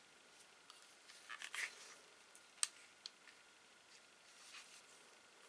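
Faint handling noises as an airsoft pistol with a mounted weapon light is turned in the hands: a short rustle, then a sharp click about two and a half seconds in and a few lighter ticks.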